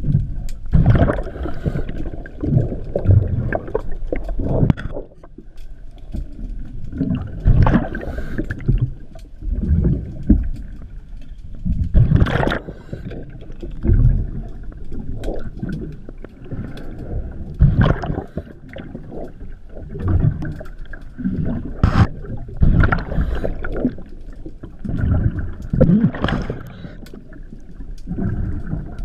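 Underwater, a scuba diver's breathing regulator and exhaled bubbles: rushes of bubbling and gurgling that come unevenly every couple of seconds.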